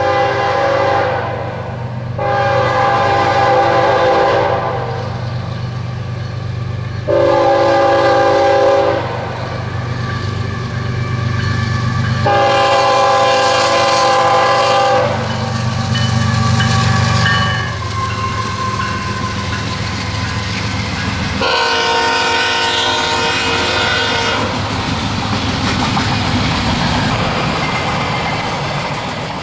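BNSF diesel locomotive sounding its multi-chime air horn in about five long blasts, a few seconds apart, over the steady low rumble of the locomotive and its passing train.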